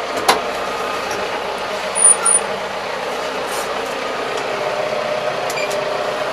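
Kubota 75 hp diesel tractor engine running steadily, heard from inside the closed cab. Two short high-pitched beeps come about two seconds in.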